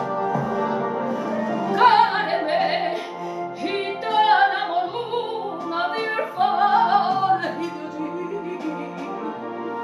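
A woman singing a Spanish copla in full voice, with strong vibrato, over instrumental accompaniment.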